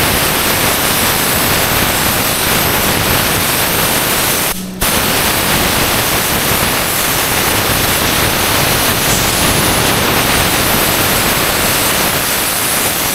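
Loud, steady hissing noise with no pitch to it, cut off for a moment about four and a half seconds in.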